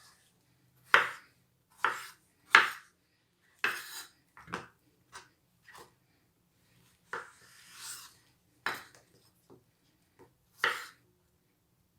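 Kitchen knife cutting zucchini on a cutting board: about a dozen sharp, irregularly spaced knocks, the loudest in the first three seconds, with a longer scrape about seven seconds in.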